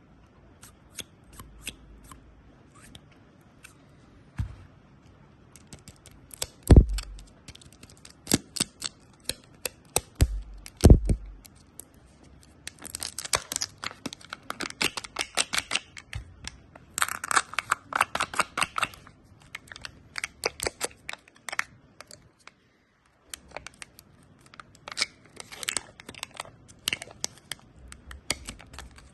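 Close-miked candy eating: crunching of hard candy, with a few loud single cracks early on and dense, rapid runs of crunches in the middle, then a brief pause before more crunching.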